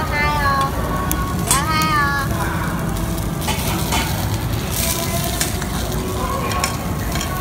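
Meat sizzling on a tabletop charcoal grill as a steady hiss. Two short vocal sounds with bending pitch come in the first two seconds.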